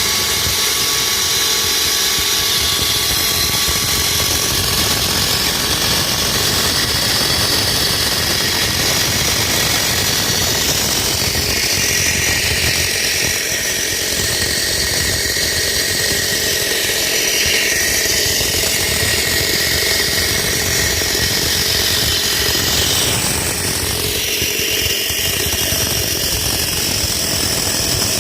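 A concrete cutting saw running steadily as it cuts through a concrete slab. Its high whine dips and rises a few times in the second half as the blade works the cut.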